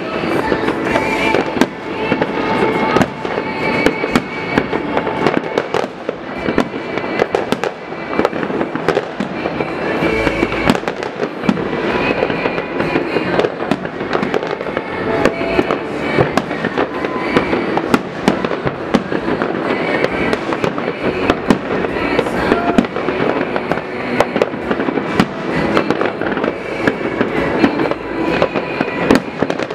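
Many fireworks and firecrackers going off across a city: a dense, unbroken crackle of bangs and pops, some closer and louder, with no let-up.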